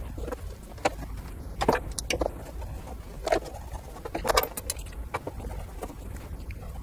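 Irregular clicks and rattles of plastic wiring connectors and the cable harness being handled and plugged in behind a car's dashboard display, over a low steady hum.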